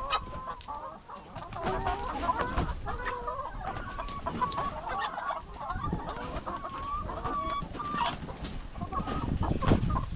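A flock of laying hens clucking and calling, with many short calls overlapping throughout.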